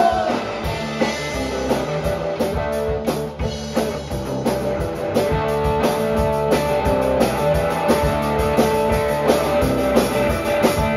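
Live rock band playing an instrumental passage: electric guitar, electric bass and drum kit, with no singing.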